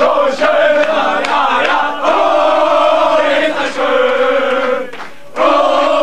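A group of men singing a football chant together in long held phrases, with a short break about five seconds in.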